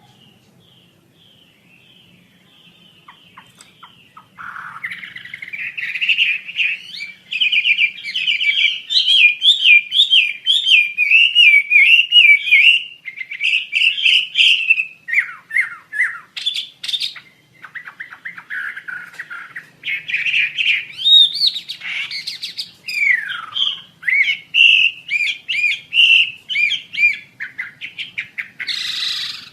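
Asian fairy-bluebird (wambi asia) singing: after about four faint seconds, a long run of fast, high warbling and chattering phrases, varied notes and quick trills with some gliding whistles, continuing to the end.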